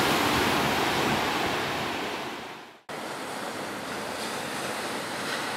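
Sea surf with wind on the microphone: a rush of waves fades out about three seconds in, then after a sudden cut a steadier wash of surf and wind carries on.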